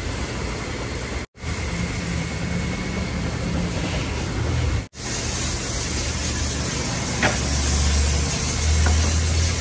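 Steady mechanical running noise with a low hum, cutting out briefly twice.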